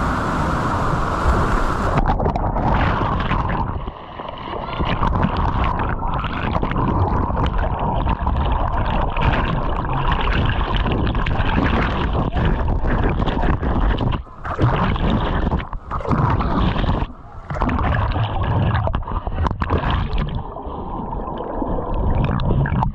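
Rushing, gurgling river water close to the microphone, dropping out sharply for a moment several times.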